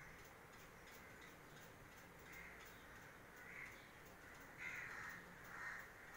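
Faint crows cawing: several harsh caws about a second apart, starting a little before halfway, over an otherwise near-silent background.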